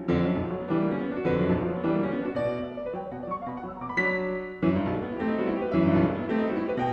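Background piano music: a run of struck chords and notes, each ringing and fading before the next.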